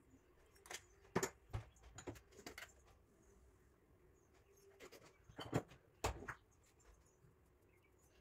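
Light clicks and taps of kitchen utensils against a steel bowl while spices are added, in two clusters: one about a second in and one around five to six seconds in. A faint steady hum runs beneath.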